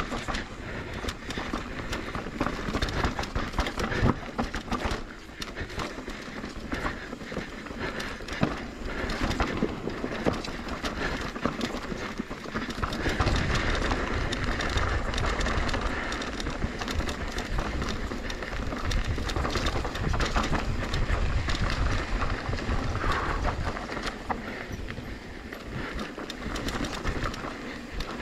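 Mountain bike riding fast down a rough dirt downhill trail: continuous clattering and rattling of the bike over roots and rocks, with tyre noise and a low wind rumble on the microphone that grows heavier about halfway through.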